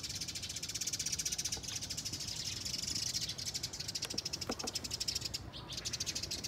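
A singing insect's high, fast, evenly pulsing trill, running steadily, with two faint short chirps about four and a half seconds in.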